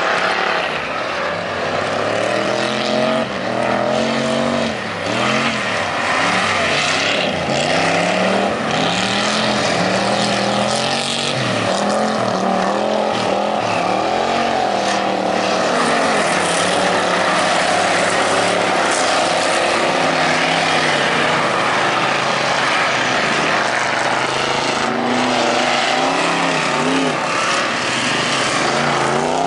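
Dirt-track stock car engines revving up and down over and over, pitch rising and falling every second or two, over a steady rushing noise.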